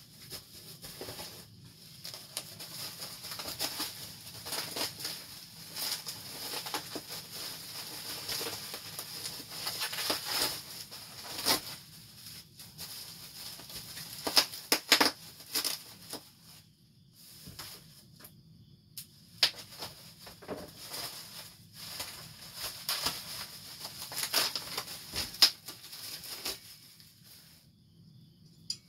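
Plastic bubble wrap being handled and pulled off a horn bell: irregular crinkling and rustling with occasional sharp snaps, pausing briefly now and then.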